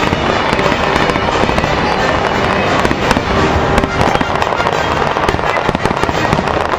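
Fireworks display going off in a dense, continuous barrage of bangs and crackles with no pause.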